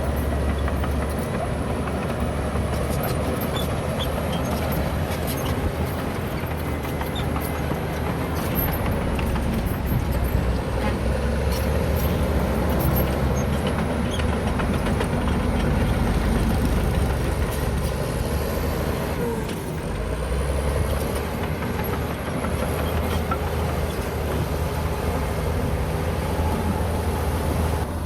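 Heavy diesel earthmoving machinery working: a deep, steady engine drone under load, with clatter and scraping over it. The sound eases briefly about twenty seconds in.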